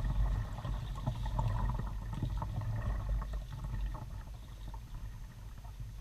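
Kayak paddling: small splashes and trickling water from the paddle blades over a steady low rumble. The splashing thins out after about four seconds.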